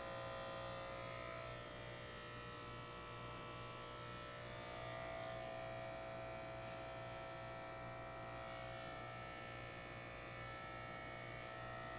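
Electric hair clippers buzzing steadily as they shave a head down to stubble, the pitch wavering slightly as the blade moves over the scalp.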